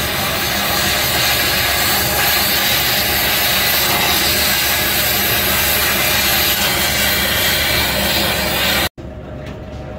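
Oxy-fuel cutting torch running with a strong, steady hiss as it cuts through a steel nut on the track adjuster spring's rod, throwing sparks. The hiss cuts off sharply about nine seconds in, and a quieter sound follows.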